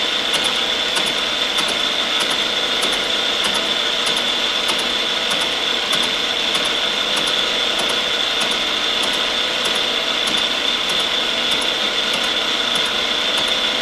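Brown & Sharpe No. 2 universal milling machine face-milling a lathe compound rest with a 5-inch carbide-tipped shell mill under power feed: a steady cutting and gear noise with a high whine and a light regular ticking a few times a second.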